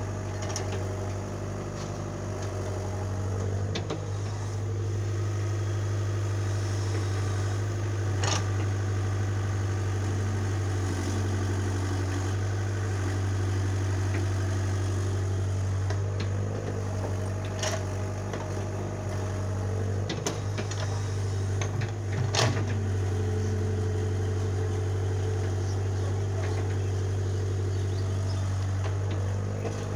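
Steady diesel engine drone of a small tracked excavator at work digging and loading soil, with a few sharp knocks scattered through, the loudest about two-thirds of the way in.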